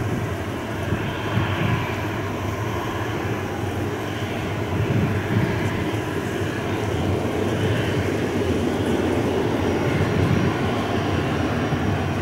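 Boeing 737-300's CFM56-3 turbofan engines at taxi power as the airliner rolls slowly past, a steady jet rumble. A thin high whine joins it near the end.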